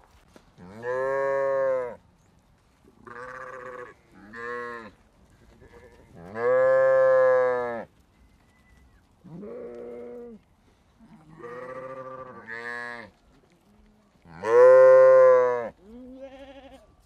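Sheep bleating in a flock: about nine separate baas from several animals, each up to about a second and a half long, varying in pitch and loudness.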